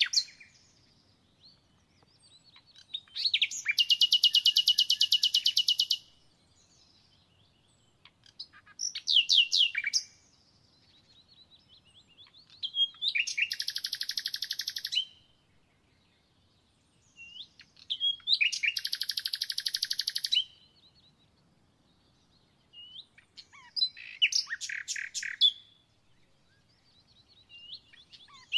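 A songbird singing repeated phrases, one every four to five seconds: each is a few short high notes running into a fast, even trill lasting up to about three seconds.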